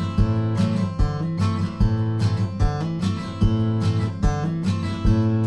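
Music: acoustic guitar strumming chords in a steady rhythm.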